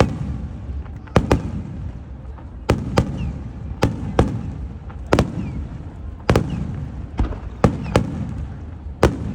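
Aerial fireworks exploding: a dozen or so sharp bangs at uneven intervals, each followed by a rolling rumble.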